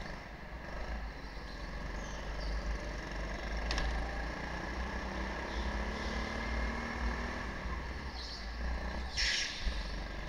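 Go-kart engine running steadily as the kart laps, under a heavy low rumble from the onboard mount. A short hiss about nine seconds in.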